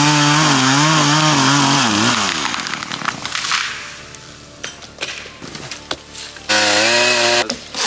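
Two-stroke chainsaw running at high revs, its pitch wavering under load as it cuts through a cedar trunk. It drops away about two seconds in while the tree comes down. Near the end the saw revs up again for about a second.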